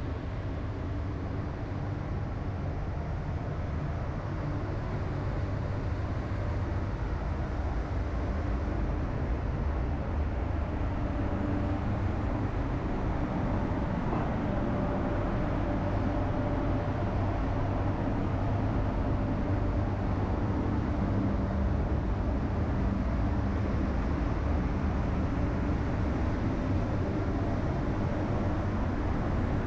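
Paint spray booth's ventilation running: a steady low rumble of moving air, with a faint hum in the middle stretch.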